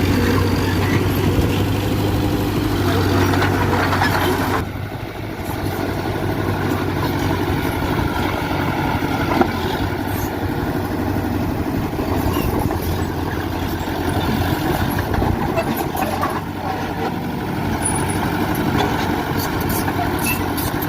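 Heavy diesel earthmoving machinery running. A steady low engine hum stops abruptly about four and a half seconds in and gives way to a rougher, noisier running sound.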